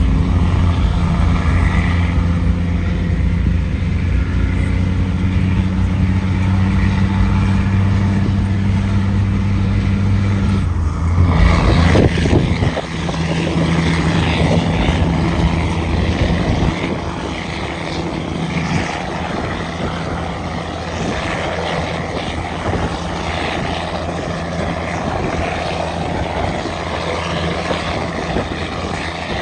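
Cat 6NZ inline-six diesel of a loaded Kenworth W900L running steadily under load. About eleven seconds in the note breaks off briefly, then settles at a different pitch and runs on a little quieter.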